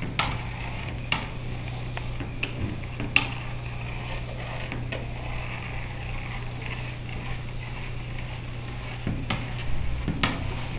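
Steady low room hum with a handful of short, sharp clicks and taps scattered through it.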